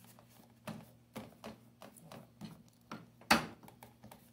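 Hands patting and pressing pizza dough into an aluminium baking tray: soft, irregular taps, with one louder knock a little over three seconds in.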